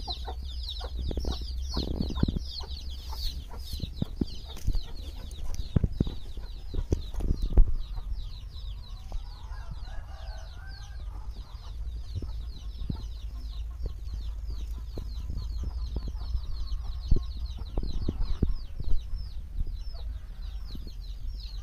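Many young chicks peeping continuously in a rapid, high-pitched chatter, loudest in the first few seconds, with a low cluck or two from a hen around the middle. A low rumble and a few sharp knocks on the microphone run underneath.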